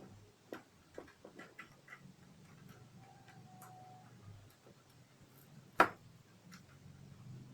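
A run of light clicks and taps, then one sharp knock about six seconds in, over a faint low hum.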